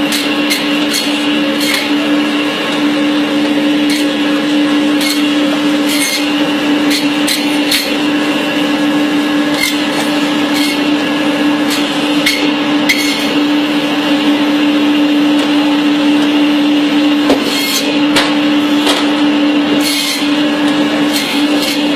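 Electric bone-cutting machine running with a steady motor hum as it cuts goat bone, broken by irregular sharp ticks and cracks.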